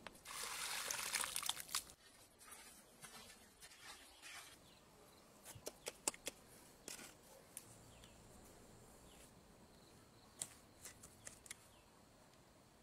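Dry cement poured from a bowl onto sand, a loud gritty pour lasting about two seconds. Then come quieter scrapes of a trowel in gritty mortar and scattered sharp taps and clicks as bricks are set in place.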